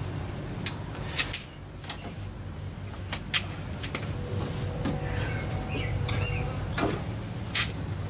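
Plastic parts of a 2016 Toyota Camry's door handle and door trim being handled and fitted together: a handful of sharp clicks and knocks at irregular spacing.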